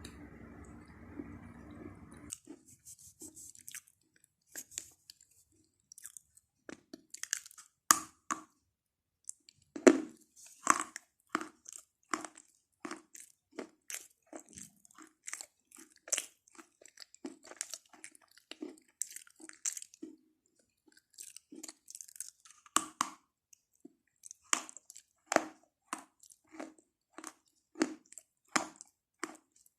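Close-miked chewing of chalk: a long run of sharp, irregular crunches, about one or two a second, with a short pause midway. A low steady hum is heard for the first two seconds, before the crunching starts.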